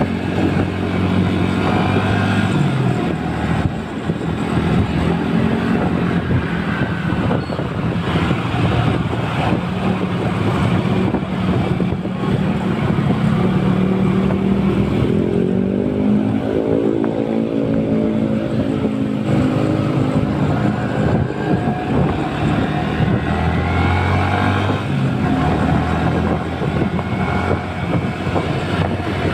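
Motorcycle engine running under way; about halfway through its note rises as it speeds up, then holds steady.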